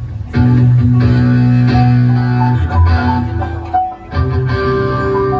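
A band playing music with guitar and bass guitar at a sound check, with held bass notes; it briefly drops away about four seconds in, then picks up again.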